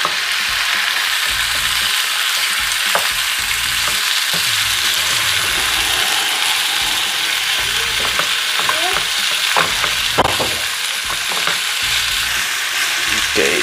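Pork pieces and sliced onions sizzling steadily in oil in a non-stick frying pan, turned with a wooden spatula that knocks against the pan a few times.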